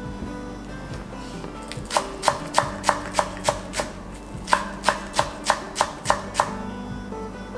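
Kitchen knife chopping small green onions on a wooden cutting board: two runs of about seven even strokes, roughly three a second, with a short pause between them. Soft background music plays underneath.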